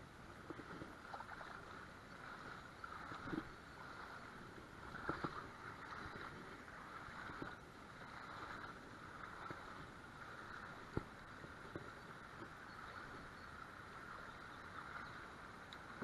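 Shallow river water running steadily over a riffle, with a few faint knocks and clicks along the way, one sharper knock about eleven seconds in.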